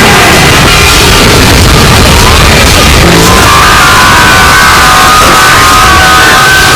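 Very loud, distorted music, a dense clash of overlapping layers with several held tones stacked together in the second half.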